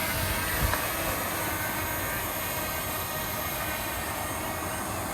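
Steady outdoor rushing noise with no distinct events, apart from a small low knock about a second in.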